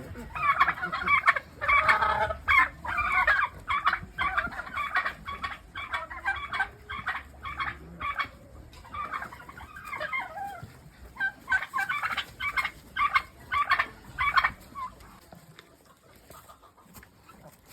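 Chickens clucking, many short calls overlapping, dying down about fifteen seconds in.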